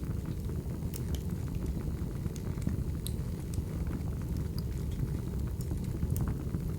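Crackling wood fire: a steady low rumble of burning logs with scattered sharp pops, the clearest about one, three and six seconds in.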